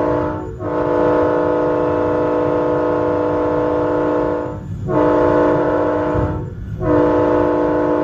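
A train's multi-note chime air horn blowing a chord in long blasts with brief breaks about half a second, four and a half and six and a half seconds in. The shorter blast between the last two gaps fits the long-long-short-long grade-crossing warning as the train nears a road crossing. The low rumble of the moving train runs underneath.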